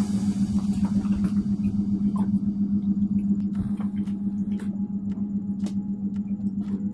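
A steady low hum at one pitch, with scattered light clicks and taps above it.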